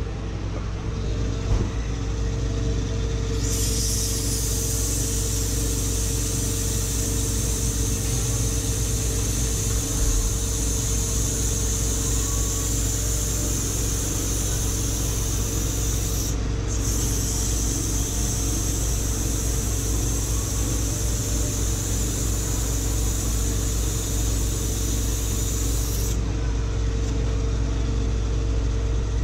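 Ammco 4000 brake lathe running with a steady low hum. From about three seconds in until a few seconds before the end, emery tape held against the spinning, freshly machined brake rotor makes a steady high hiss, broken once briefly midway, as the surface is smoothed.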